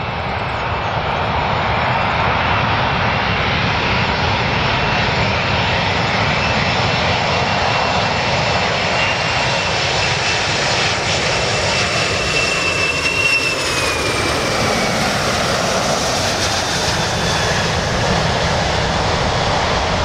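Boeing 747-400 jet airliner on final approach, its four jet engines giving a loud, steady rumble and hiss with a high whine. About two-thirds of the way through, the whine slides down in pitch as the airliner passes.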